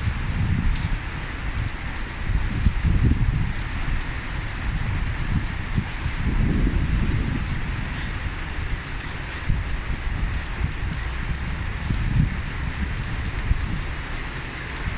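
Steady heavy rain falling and splashing on surfaces, with an uneven low rumble that swells and fades every second or two.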